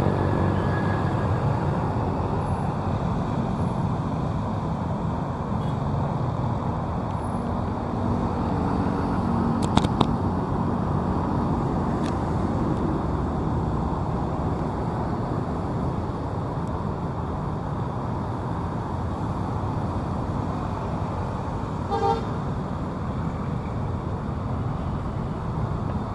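Steady road traffic on a busy city street, with vehicle engines and tyres making a constant low rumble. A short vehicle horn toot sounds about 22 seconds in, and two sharp clicks come about ten seconds in.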